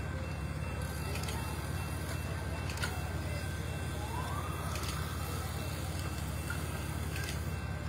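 Steady outdoor street noise with a low rumble throughout, a few faint clicks, and a short tone that rises and then holds about four seconds in.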